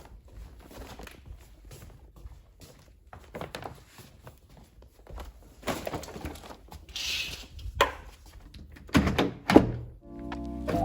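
Knocks and thuds of bagged frozen food being handled and put into a freezer, with a short hiss partway through and the loudest thuds near the end. A few seconds of music begin just before the end.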